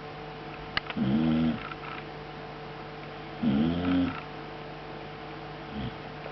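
A sleeping pet snoring: two long snores about two and a half seconds apart, then a short weak one near the end, over a steady low hum.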